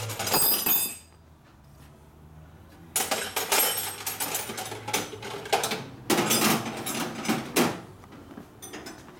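Metal hand tools clinking and clanking in short knocks while a wrench is hunted for: a short burst of clicks at the start, a pause of about two seconds, then a run of irregular metallic clanks.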